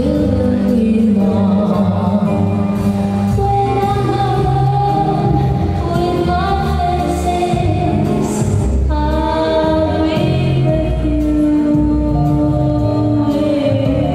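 Slow foxtrot dance music with a singing voice, playing without a break.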